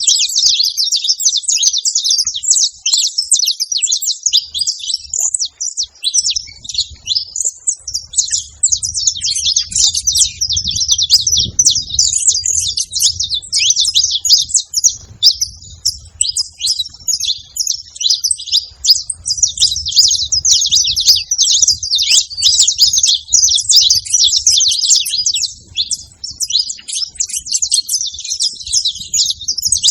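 Saffron finch singing and chattering without pause: a dense run of rapid, high chirps and trills with hardly a break.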